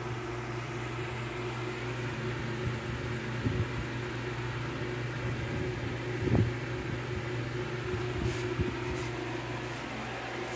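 Steady low hum of an electrical room appliance running, with a couple of soft low thumps, the loudest about six seconds in.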